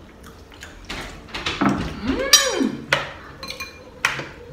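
Clinks and knocks of dishes and cutlery as food is handled at a table, about half a dozen sharp taps spread through it. In the middle comes a short sliding tone that rises and falls.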